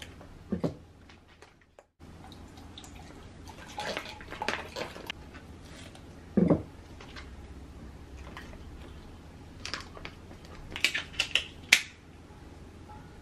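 Small handling sounds around a drinks tumbler: a paper sachet crinkling, one dull thud about six and a half seconds in, and a quick run of sharp clicks and knocks near the end.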